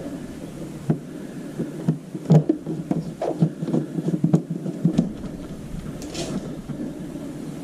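Irregular clicks and knocks of plastic scooter body panels and fasteners being handled and pushed into place, busiest in the middle, with a short hiss near the end.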